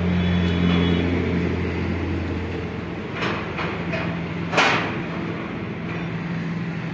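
Two sharp metallic clinks, the louder one about four and a half seconds in, from a tractor engine's piston, connecting rod and bearing parts being handled. Under them runs a steady low mechanical hum.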